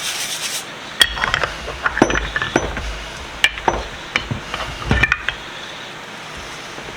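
Brief scrubbing that stops, then a run of sharp clinks and knocks of metal vise parts being handled, some ringing briefly, over about four seconds. A steady faint hiss follows.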